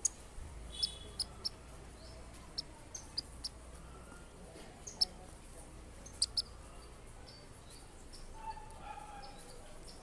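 Small birds chirping: short, sharp, high chirps at irregular intervals, a dozen or so, with a few longer, lower notes near the end.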